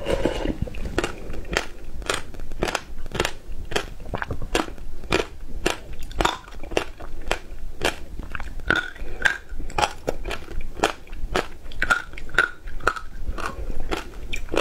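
Close-miked chewing and crunching of a mouthful of ice, a steady run of crisp crunches about three a second.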